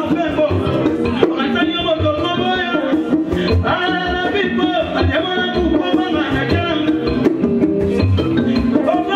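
Congolese dance-band music played live through a PA: a man singing into a microphone over melodic instruments and a steady drum beat about twice a second.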